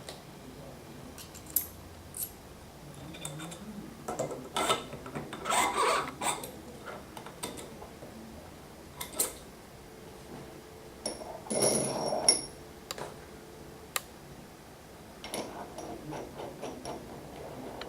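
Metal tools and bicycle bottom-bracket parts being handled: scattered sharp clicks and clinks, with two spells of busier metallic rattling and scraping, the second with a brief ringing note.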